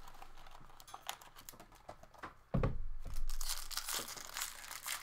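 Packaging being torn open and crinkled as a sealed box of hockey cards is unwrapped, with scattered crackles and a dull bump about two and a half seconds in.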